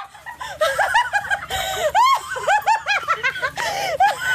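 A woman laughing hard, a quick run of short, high-pitched peals several times a second.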